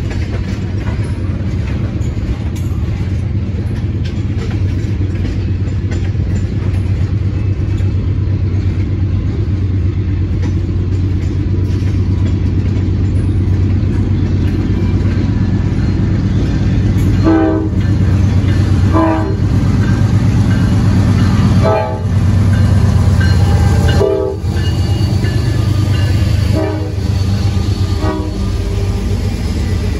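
Norfolk Southern diesel freight locomotives approaching and passing at the head of an intermodal train: a steady low engine rumble that builds, with the horn sounded in several blasts from a little past halfway.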